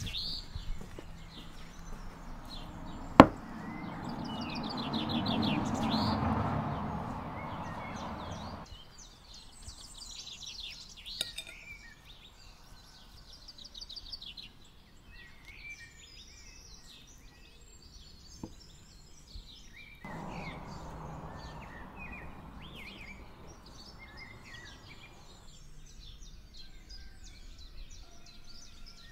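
Small birds chirping and singing, with one sharp knock about three seconds in. A rushing noise swells for several seconds and cuts off abruptly, and a fainter stretch of it returns later.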